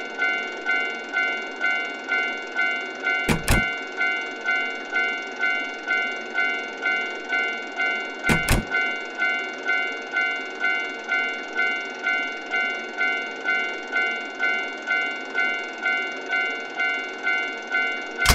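Japanese railroad crossing warning bell ringing its repeated 'kan-kan' alarm at about two strikes a second, with brief sharp clicks three times.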